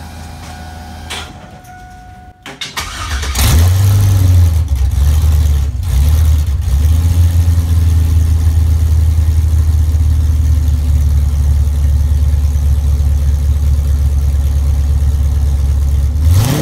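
Car engine running on bare headers with no exhaust pipes, catalytic converters or mufflers. It is cranked and catches about three seconds in, the level jumping sharply, gives a couple of quick revs, then idles loud and steady, uncorked. Before it starts there is a faint steady whine.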